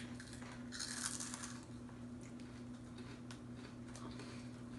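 Faint crunching and crackling of puffed corn snack being eaten, loudest about a second in, with scattered small clicks, over a steady low electrical hum.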